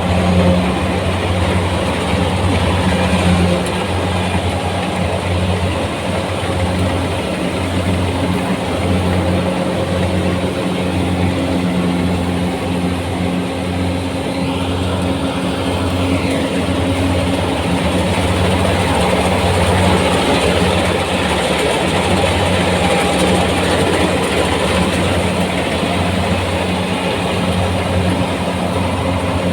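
Kubota rice combine harvester running steadily while harvesting, a constant engine drone under the rushing noise of its machinery.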